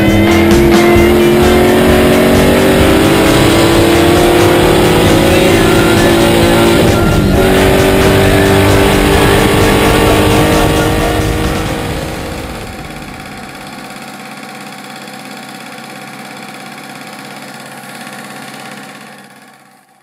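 Ford small-block V8 of a 1963 AC Cobra accelerating hard, its pitch climbing steadily, briefly broken about seven seconds in, then fading away. Quieter sustained background music remains and fades out near the end.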